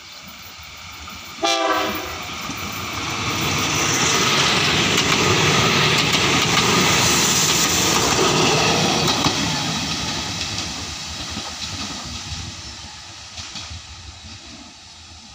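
Nathan K3LA air horn on a diesel locomotive sounds one short, loud blast about a second and a half in. The train then passes close by, the rumble of the locomotive and coach wheels on the rails building to a peak and fading away.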